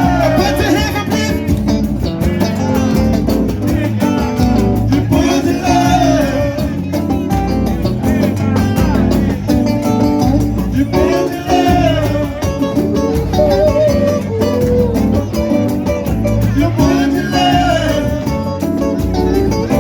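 A live band playing: a singer's phrases over guitar and a steady beat.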